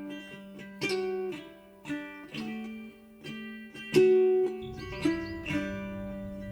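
Background music: a plucked string instrument playing single notes and small chords about a second apart, each ringing out and fading.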